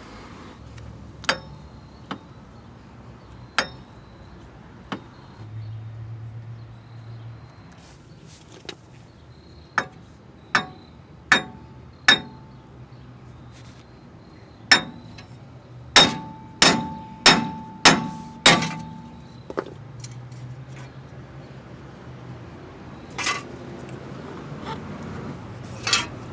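Hammer blows on the steel wheel hub assembly: single strikes every second or two, then a quick run of about six blows roughly half a second apart about two-thirds of the way through, several leaving a short metallic ring.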